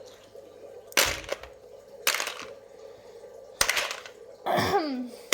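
Loose plastic keyboard keycaps clattering together in a bowl, in three short rattling bursts.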